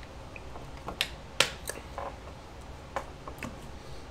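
Sharp clicks and smacks of someone drinking from a plastic sports-cap water bottle, about five in all, the loudest about a second and a half in.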